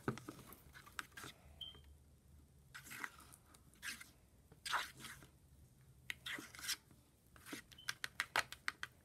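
A pen stirring freshly activated school-glue slime in a plastic container, making wet squelching, scraping strokes with quicker strokes near the end. The slime is still a little too sticky.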